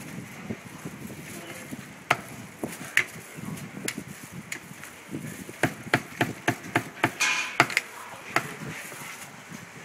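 Meat cleaver chopping roast duck on a thick round wooden chopping block: about a dozen sharp, irregular chops, coming faster and closer together in the second half.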